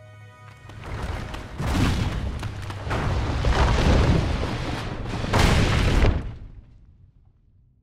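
Film sound effect of deep rumbling crashes with no tune: it builds about a second in, surges heavily three times and cuts off abruptly a little after six seconds, then dies away.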